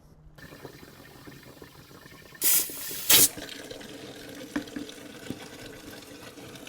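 Beet-juice tire ballast running out of the tractor tire's valve stem and filling a bucket, with two short hissing blasts of compressed air about two and a half and three seconds in, back-pressurizing the tire to push the fluid out faster.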